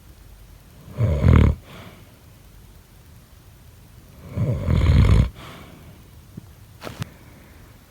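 Heavy snoring: two long, rattling snores, one about a second in and a longer one about four seconds in, with a couple of small clicks near the end.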